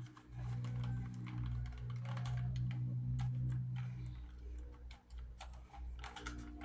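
Plastic Rubik's Cube layers being twisted, a quick irregular run of clicks, over a steady low hum.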